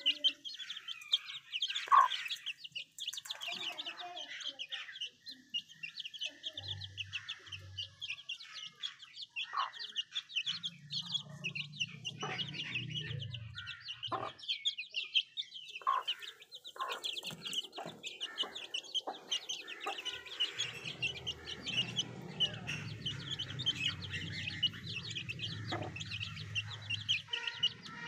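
A brood of Aseel chicks peeping continuously in rapid, high chirps as they feed together, with a hen's low clucking coming and going underneath and a few sharp taps.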